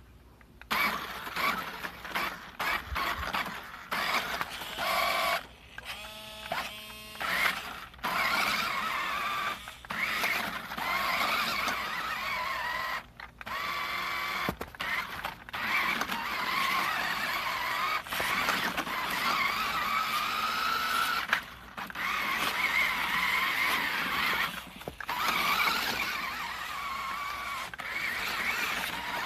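Toy RC rock crawler's small electric motor and gearbox whining as it drives, starting and stopping every second or two, the pitch rising and falling with the throttle.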